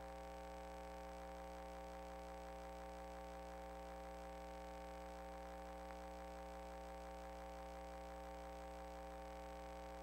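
Faint steady electrical hum made of several fixed tones over a low hiss, unchanging throughout.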